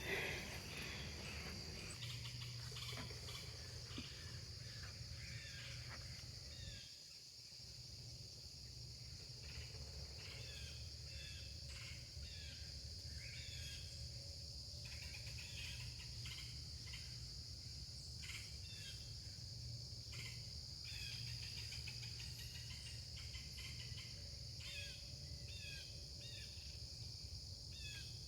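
Blue jays and woodpeckers calling in woodland, short repeated calls scattered throughout, over a steady high insect drone of crickets.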